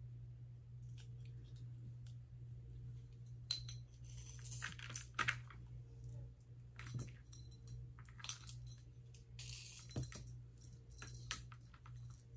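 Metal bead chain for a dog tag jingling and clinking as it is handled, threaded and pulled taut, in short irregular spells that are busiest in the middle. A steady low hum runs underneath.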